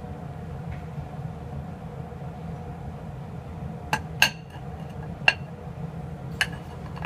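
Steel bolts clinking against a ceramic plate as they are tipped over: four sharp clinks, starting about four seconds in and spread over two and a half seconds, over a steady low hum.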